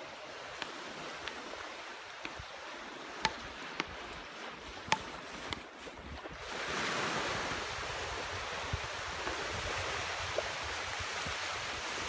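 Sea waves washing on the beach shore, with a few sharp clicks in the first half; about six and a half seconds in, the wash grows louder and stays up.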